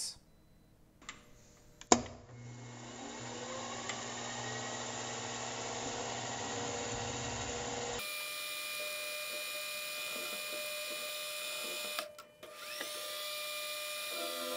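Milling machine spindle with a drill in the chuck, switched on with a click about two seconds in and running up to a steady whine. The sound changes abruptly about eight seconds in, drops out briefly near the end, then rises again as the spindle comes back up to speed.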